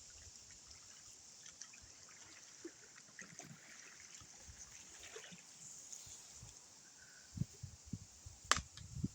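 Faint water trickling and dripping from the oars of a small boat being rowed, with scattered small ticks. A few low thumps come in the last couple of seconds, with one sharp click about 8.5 s in.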